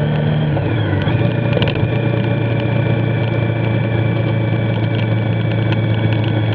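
Motorcycle engine running at road speed, with wind and wet-tyre noise; the engine note drops about half a second in as the throttle eases or a gear changes, then holds steady.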